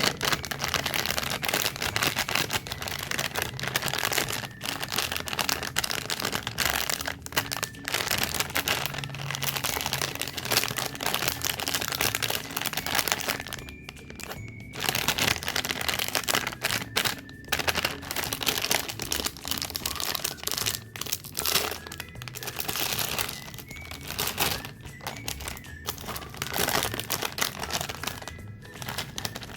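Close-miked crinkling of snack wrappers and crunching of packaged cakes and cookies: a dense, crackly run of rustles and cracks, with a few short pauses. Soft background music plays under it.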